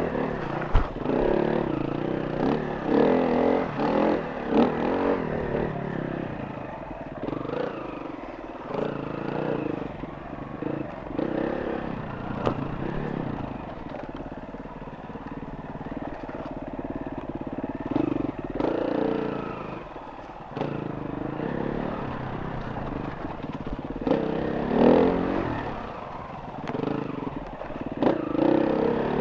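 Enduro dirt bike engine running off-road, its revs rising and falling again and again, with scattered knocks and clatter.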